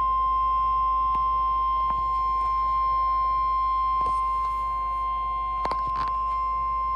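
NOAA Weather Radio warning alarm tone: one steady 1050 Hz tone, held unbroken, signalling that a warning bulletin follows. A few faint clicks of static sit under it.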